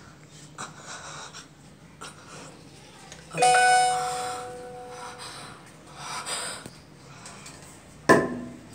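A single bell-like ding whose ringing tone fades over about a second and a half, then a sharp knock near the end.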